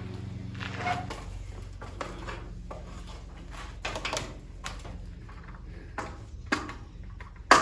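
Irregular knocks, taps and clunks of handling, with a sharp loud knock near the end, over a steady low hum.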